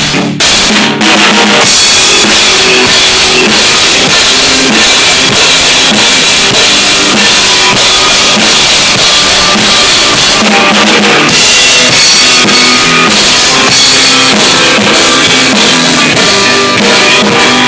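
Rock drum kit played hard and loud: bass drum, snare and cymbals struck in a steady driving beat.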